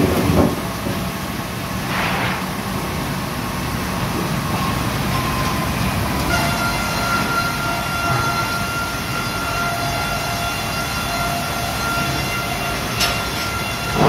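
Sawmill machinery running steadily: a single-arbor multirip saw and its powered roller infeed conveyor, with a few sharp knocks of wood on the rollers. About six seconds in a steady high whine with several overtones sets in and holds while a board passes into the saw.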